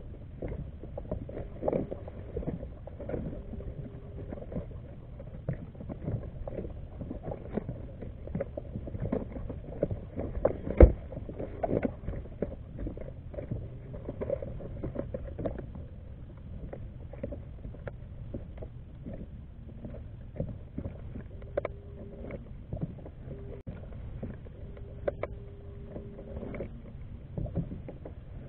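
Small clicks, knocks and rattles of fishing tackle being handled on a plastic kayak as the bait is changed, with one sharp knock about eleven seconds in. A low steady rumble runs underneath.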